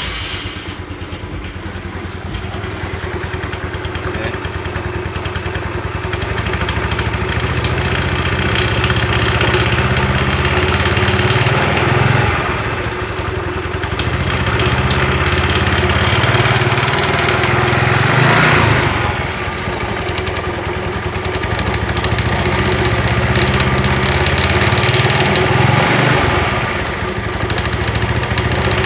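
Yamaha Mio Sporty scooter's single-cylinder engine and CVT running at idle and low throttle, revved up a couple of times, with a rough clicking rattle from the CVT at low throttle that goes away at high revs. The rattle is the sign of a badly worn front pulley roller housing and bushing.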